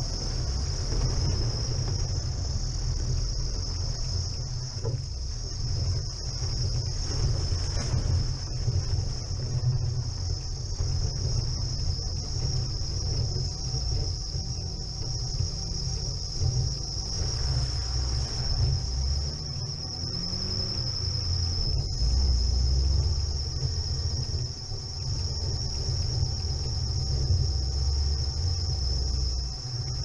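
Chevrolet Niva driving over a snowy forest track, heard from a camera mounted on the outside of the car: a steady low rumble of engine and road, swelling somewhat near the end, under a constant high-pitched whine.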